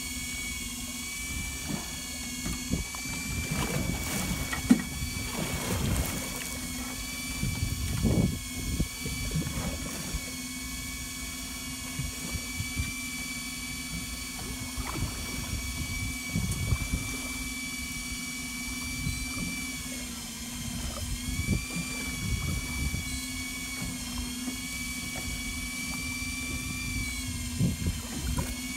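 Small fishing boat's engine running steadily, a constant hum with a higher whine over it, with water splashing and knocking against the hull now and then.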